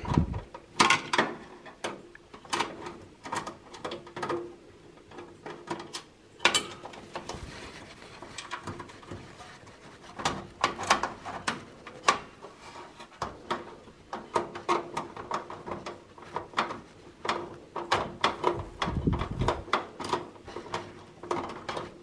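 Screwdriver turning out a graphics card's bracket screw and hands working the card loose in a steel PC case: irregular small metallic clicks, scrapes and knocks, with a duller knock near the end. A faint steady hum runs underneath.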